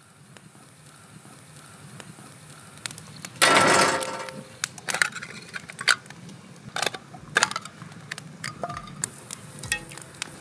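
Wood fire crackling in a steel fire pit, with sharp pops scattered throughout. About three and a half seconds in there is a loud hissing burst that fades over about a second.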